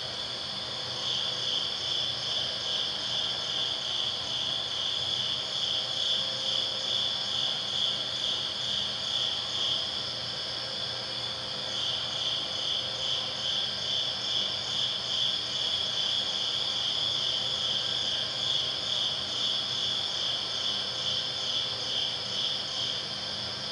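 The high, pulsing chirr of an audiovisual performance's soundscape, like crickets: about three pulses a second, with a short lull about ten seconds in. A faint low hum lies under it.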